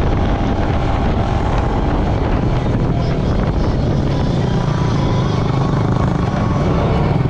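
ATV engine running steadily while riding along a dirt trail, loud and close.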